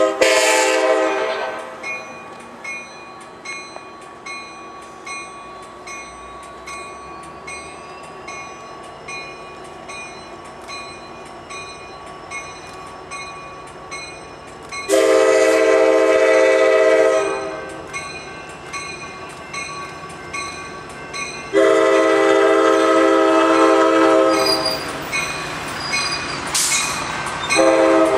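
Nathan K5LA five-chime air horn on an EMD F59PHI locomotive blowing as the train approaches: a brief blast at the start, two long blasts in the middle and another beginning near the end, with the train's rumble growing louder as it comes closer.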